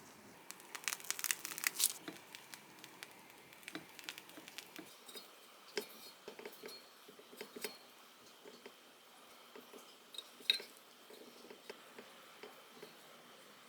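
Kitchen handling sounds: a quick run of small clicks and clinks of utensils and dishes in the first two seconds, then scattered light taps and rustling, with one sharp click about ten seconds in.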